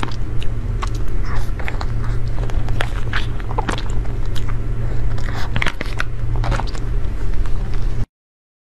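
Close-up eating sounds of soft layered cream cake: many short wet mouth clicks and smacks, mixed with clicks of a spoon and a clear plastic cup, over a steady low hum. The sound cuts off abruptly near the end.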